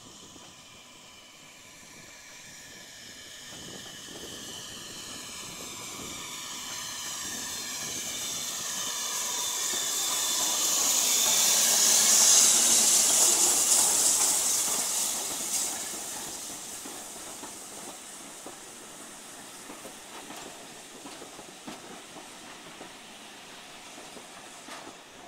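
Steam locomotive running past the platform, hissing steam. The sound swells as it approaches, is loudest as the engine passes close about twelve seconds in, then drops to the quieter running of its coaches going by.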